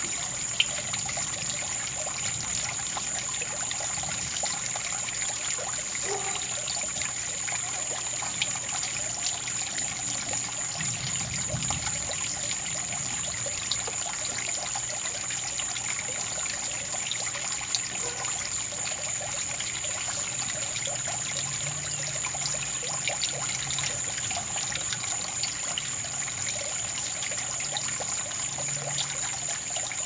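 Water trickling steadily, with scattered small drips, under a constant high-pitched whine.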